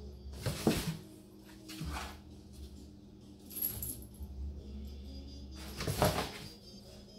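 A cat scrambling about in a cardboard box, scuffing and scratching the cardboard. There are two loud bursts of rattling noise, one under a second in and one about six seconds in, with softer scrapes between them.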